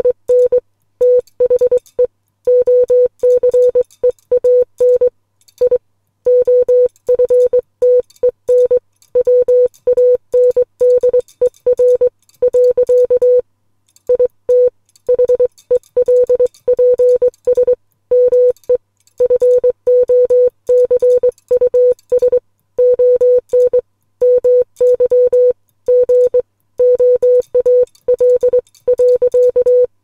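Morse code sent by hand on a Les Logan SpeedX Model 500 semi-automatic bug key, heard as a mid-pitched electronic beep keyed on and off in quick dots and longer dashes. The letters run in groups with short gaps between words.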